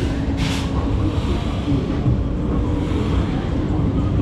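Open-air funfair ambience: a steady low rumble with a constant mechanical hum running through it, and a short hiss about half a second in.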